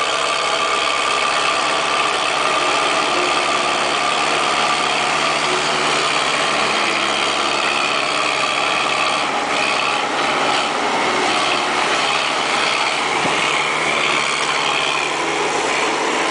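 Backhoe engine running steadily, with a brief change in its tone about nine to eleven seconds in.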